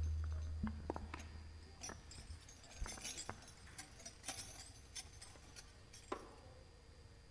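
The last low note of the banjari music dies away, then scattered faint clicks and knocks, about a dozen, as handheld microphones are set down on a tiled floor and handled.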